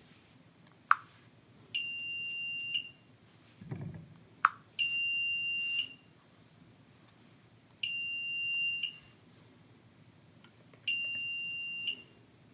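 Geeni SS003 water leak sensor's alarm beeping: a steady high beep about a second long, repeated every three seconds, four times, because its probe is sitting in water and it has detected a leak. Two short sharp clicks fall between the beeps.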